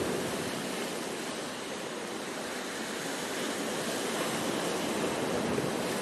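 Sea surf breaking and washing over shoreline rocks, a steady rushing noise that eases a little about a second and a half in and builds again near the end.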